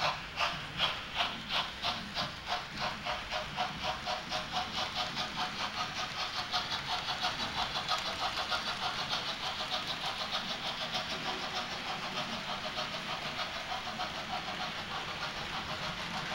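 Model steam locomotive of class 01 running on a model railway layout. It makes a rhythmic beat that quickens from about two to about five beats a second over the first eight seconds, then holds steady.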